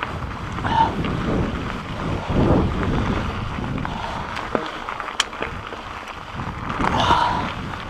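Mountain bike descending rocky singletrack at speed. Wind buffets the microphone over the rumble and rattle of the tyres and frame on dirt and rocks, with occasional sharp knocks from bumps.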